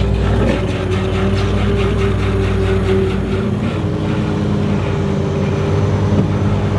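Lobster boat's engine running steadily, with a steady whine from the hydraulic trap hauler that drops slightly in pitch about halfway through as a trap is winched up to the rail.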